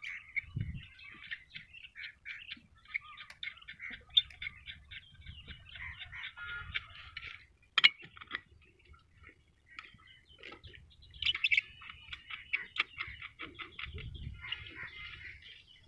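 Small birds chirping in quick, dense runs, with scattered low knocks and one sharp click about eight seconds in.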